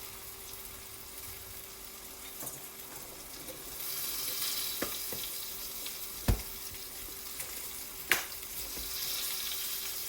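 Food sizzling in a frying pan; the sizzle grows louder about four seconds in. A sharp knock a little after six seconds is the loudest sound, and a smaller click comes about two seconds later.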